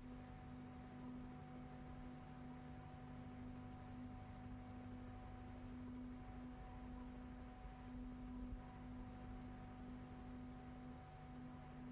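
Faint steady electrical hum, a low buzzing tone with a weaker higher overtone, over light hiss. No sound comes from the filmed scene: the 1912 newsreel is silent.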